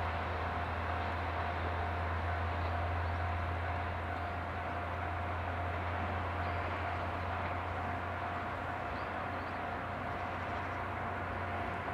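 Kanto Railway KiHa 2300-series two-car diesel railcar pulling away, its engine a steady low drone that slowly fades over the last few seconds. A steady high tone runs throughout, and a few faint chirps come near the top.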